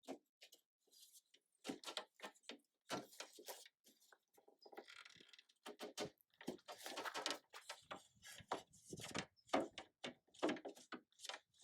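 Faint, irregular clunks, taps and scraping as window glass is handled and worked down into a Jeep Wrangler TJ door and its track.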